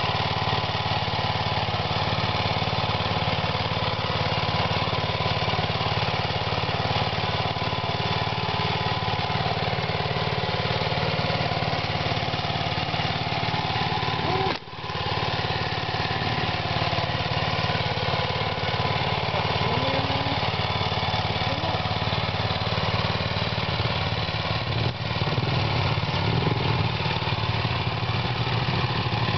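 Small single-cylinder air-cooled petrol engine of a walk-behind hand tractor cultivator running steadily, with a brief break about halfway. It runs louder in the last few seconds as the cultivator works the soil.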